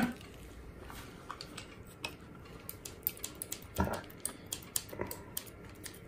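Small scissors clicking and snipping at plastic packaging in short, irregular cuts, struggling to get through. One louder short knock about four seconds in.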